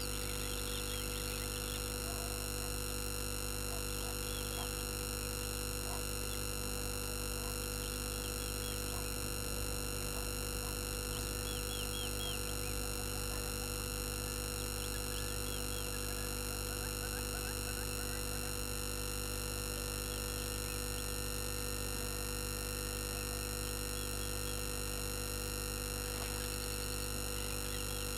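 Steady electrical hum and whine: many fixed tones at once, unchanging throughout, typical of interference on a live camera's audio line. Faint, brief bird chirps come through underneath a few times.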